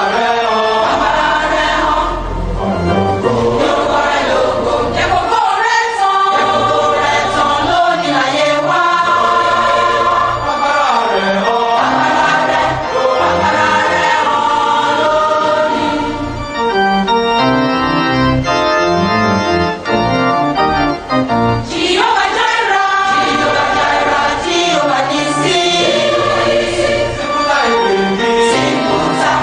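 Choir singing gospel music with organ accompaniment.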